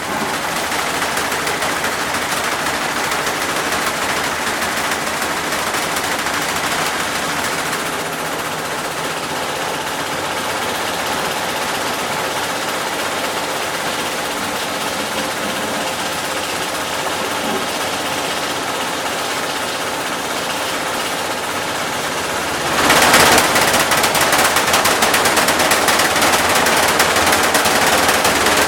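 Esatto front-loading washing machine in its spin cycle, a loud, fast rattle. About 23 seconds in it steps up and gets louder. The owner finds it a bit noisy when it spins.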